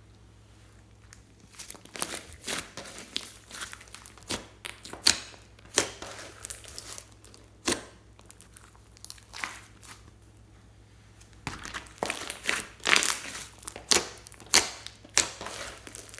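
Slime being squeezed and stretched by hand, making irregular crackling pops and clicks with a short lull partway through, over a faint steady low hum.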